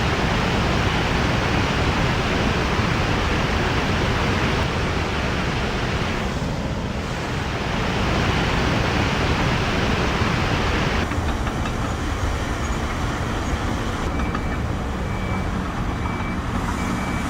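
Loud, steady roar of rushing floodwater. About eleven seconds in the sound changes, and a faint low hum and a faint broken high tone join it.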